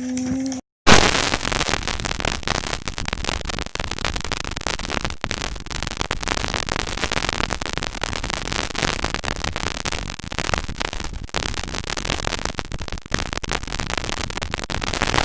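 Loud, even static-like noise with a crackly texture, starting suddenly about a second in after a moment of silence.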